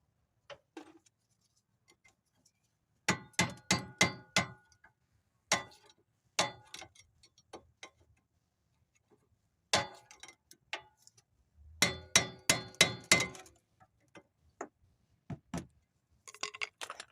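Metal tool tapping on the rear brake caliper, making quick runs of sharp, ringing metallic strikes with pauses between, as a rust-caked rear brake pad is worked loose.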